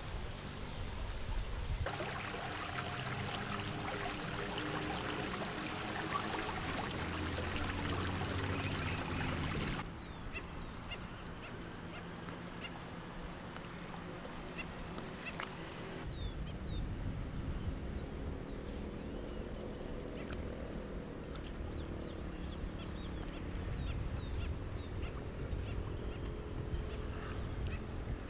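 Outdoor ambience with birds calling in short, high, falling chirps over a steady background hiss. A louder rushing noise fills the first several seconds and stops abruptly.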